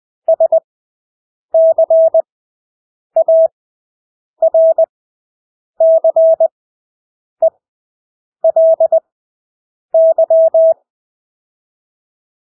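Morse code (CW) practice tone: one steady beep keyed into short dits and long dahs, sending characters at 20 words per minute with long Farnsworth gaps between them, about one character every second and a half.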